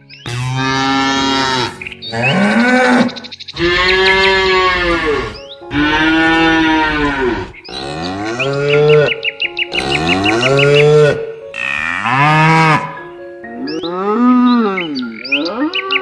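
Cows mooing over and over: about eight long, loud moos in quick succession, each rising and then falling in pitch.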